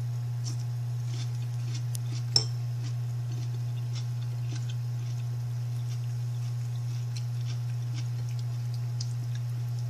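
Quiet eating by hand: faint chewing and small ticks of fingers and dishes, with one sharp click about two and a half seconds in, over a steady low hum.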